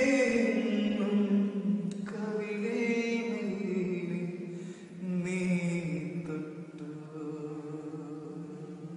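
A young girl singing a slow Malayalam children's lullaby unaccompanied, drawing out long notes in three phrases that each slide down in pitch.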